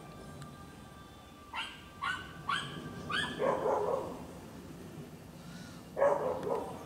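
Two dogs, a German shepherd and a chihuahua, barking: four quick high yaps in a row, then a deeper, longer bark, and another loud bark near the end. Under them a steady low rumble comes from the Boeing 737-800 passing overhead on approach.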